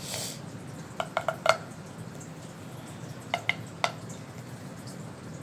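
Small pitched pops from a fidget toy being pressed: four quick pops about a second in and three more a couple of seconds later, after a brief hiss at the very start.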